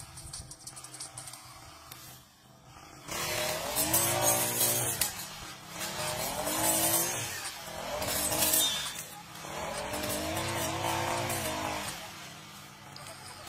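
Two-stroke brush cutter engine revving up and easing off in four swells of about two seconds each, its pitch rising and falling as it cuts through grass and weeds. The swells begin about three seconds in.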